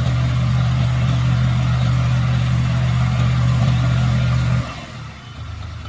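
Mini excavator engine running steadily with a low, even hum. About four and a half seconds in it drops suddenly much quieter and carries on faintly.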